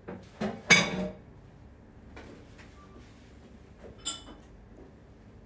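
Dishes clinking and clattering as a smaller plate is fetched: a quick run of ringing knocks about a second in, the loudest of them, and one more ringing clink about four seconds in.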